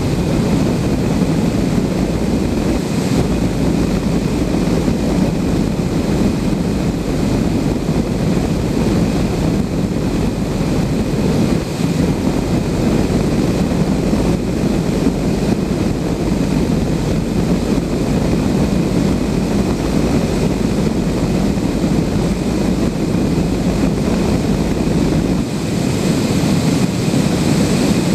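Steady rush of airflow around a Blanik L-13 glider's cockpit in flight, a loud, even noise with no engine. Near the end the deep rumble thins and the hiss brightens slightly.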